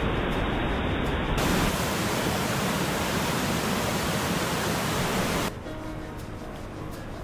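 Loud, steady rushing noise that changes abruptly about a second and a half in, then drops to a quieter hiss with faint music under it near the end.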